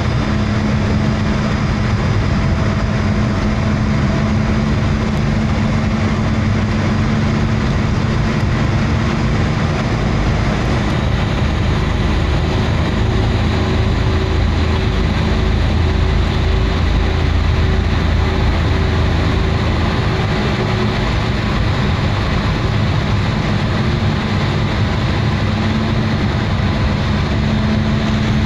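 Engine and road noise of a moving vehicle heard from inside its cabin: a steady, loud drone with a low hum whose pitch shifts for several seconds in the middle before returning.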